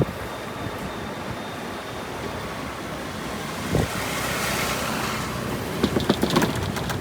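Road and traffic noise heard on a moving ride: a steady hiss, with a swell like a vehicle passing about four seconds in and a few sharp clicks near the end.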